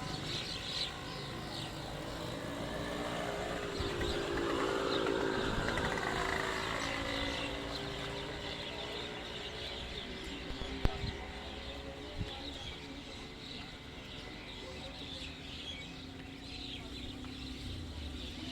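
Birds chirping outdoors, while a motor vehicle's engine passes, its pitch rising and then falling a few seconds in. A single sharp knock comes about eleven seconds in.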